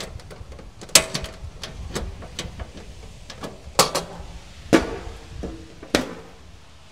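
Coleman two-burner propane camp stove being folded shut: its metal windscreen panels and lid clank closed, four sharp clacks with lighter taps between them.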